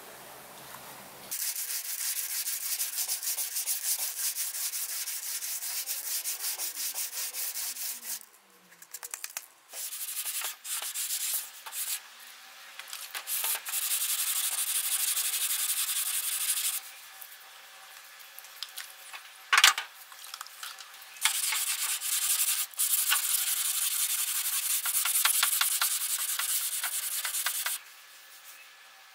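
Electric sander working a Citroën DS steel body panel, sanding down filler putty and primer to prep for paint. It sands in several runs that start and stop abruptly, with a single sharp knock about twenty seconds in.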